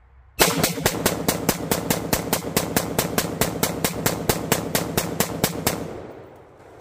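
A budget polymer-lower AR-15 rifle firing a rapid, even string of semi-automatic shots, about five a second, which stops abruptly near the end as the magazine runs dry and the bolt locks back.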